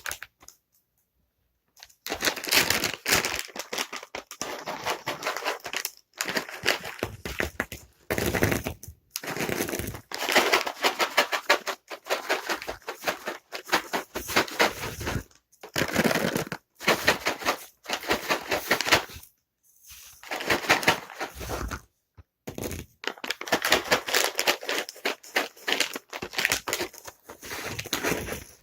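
Dry cat treats shaken in their container, rattling in quick bursts of a second or two with short pauses between. After a brief silence at the start, the shaking goes on with only a couple of short breaks.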